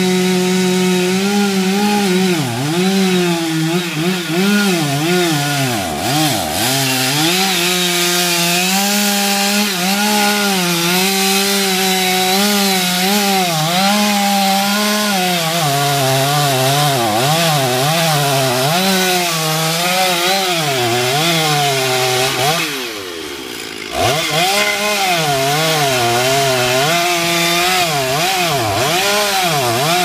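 Two-stroke petrol chainsaw cutting a felling cut into the base of a tree trunk at high revs, its pitch wavering as the chain bites into the wood. About three-quarters of the way through, the throttle is let off for a second or so and the engine drops toward idle, then revs back up and keeps cutting.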